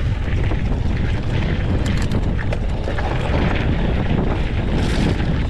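Wind rumbling on the microphone of a camera riding on a mountain bike as it climbs a trail, with scattered clicks and knocks from the bike and the ground, a small cluster about two seconds in and another near the end.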